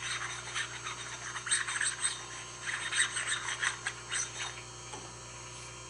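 Irregular scraping and rubbing of steel parts as the vise jaws are handled and shifted on the surface grinder's chuck. The scraping stops about four and a half seconds in, over a steady low hum.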